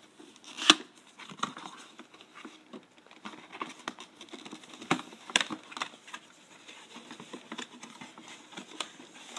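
Cardboard retail box being handled and opened at the bottom flap: scattered taps, scrapes and rustles of cardboard, with one sharp knock under a second in.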